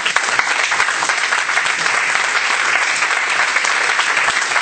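Audience applauding, joined by the people at the panel table: dense, steady clapping.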